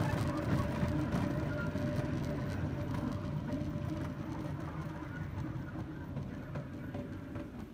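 Bamboo train (norry) running along its rails: a steady low rumble of the wheels and track that slowly gets quieter as it slows toward its stop.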